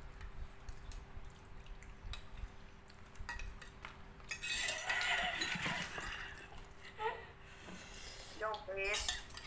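Metal spoons clinking and scraping against bowls while eating, in scattered light clicks, with a louder noisy stretch around the middle.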